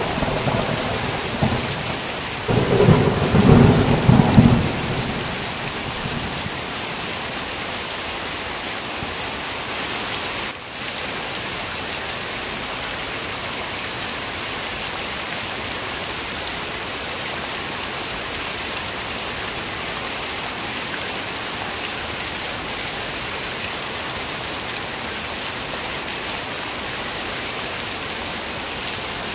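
Heavy rain falling in a steady hiss. A roll of thunder rumbles from about two and a half seconds in and fades by about five seconds, just after the tail of an earlier thunderclap dies away at the start.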